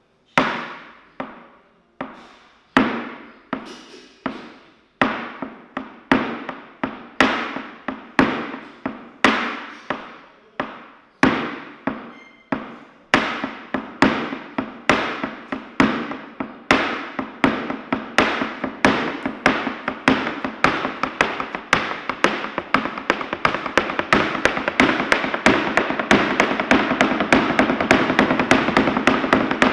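Flamenco zapateado: heel and toe strikes of flamenco shoes stamping on a hard floor, each stamp ringing briefly. The strikes start as separate stamps about two a second and speed up steadily into a rapid, continuous rattle of taps by the end.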